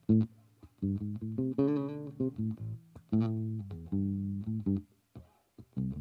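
1980 Yamaha Pulser Bass PB-600 electric bass, fingerpicked: a run of plucked notes, several held for about a second, with a short pause near the end before the playing resumes.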